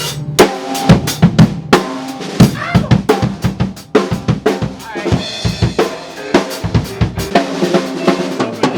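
Acoustic drum kit being played loosely, with rapid, uneven strikes throughout and a cymbal wash about five seconds in.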